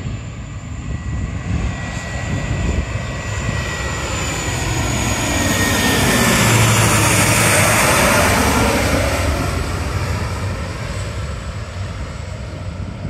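Airliner passing low overhead on its landing approach: the engine noise swells to a peak about seven seconds in and then fades away, with a high whine that falls in pitch as it nears.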